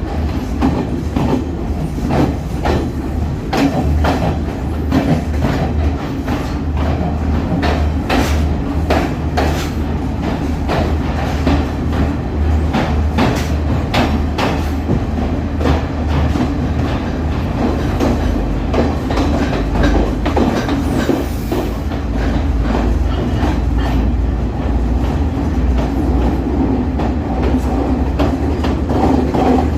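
Train running on the rails, heard from on board: a steady low rumble with frequent clicks and knocks of the wheels over rail joints.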